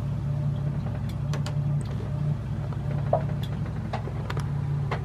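Boat engine running steadily at low speed, a low, even hum. Scattered light ticks and taps sound over it.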